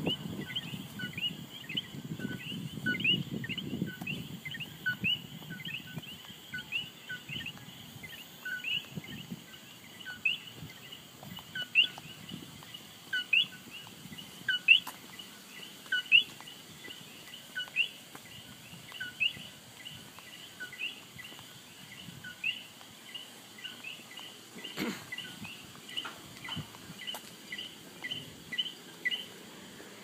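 Chorus of common coquí frogs calling. Many overlapping two-note "co-qui" calls, each a short lower note followed by a higher rising one, repeat about twice a second. A low rumble is heard in the first few seconds.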